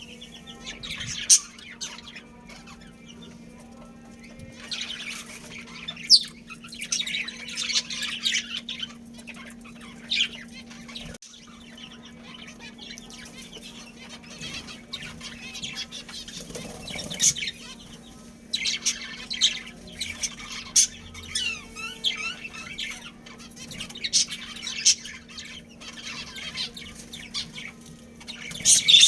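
Budgerigars chirping and chattering in bouts of a few seconds each, with several sharp, louder notes, over a steady low hum.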